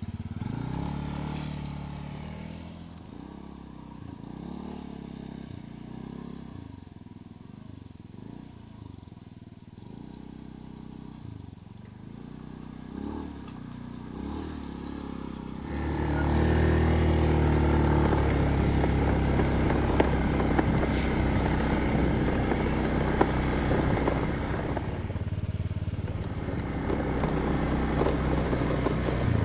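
An engine running, its pitch rising and falling, then turning louder and noisier about halfway through.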